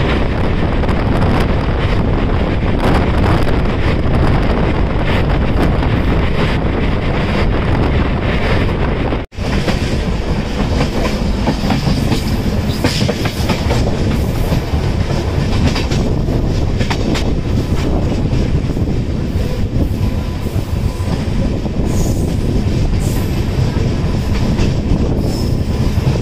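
Passenger train running at speed, heard from on board: a steady loud rumble of wheels on rails with many quick clicks over rail joints. It cuts out for an instant about nine seconds in.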